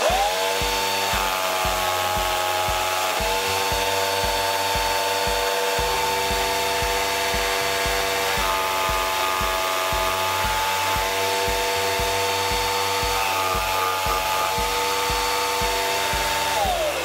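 Homemade scroll saw starting with a rising whine, then running steadily as its blade cuts a slot into a plywood block, and winding down with a falling whine near the end.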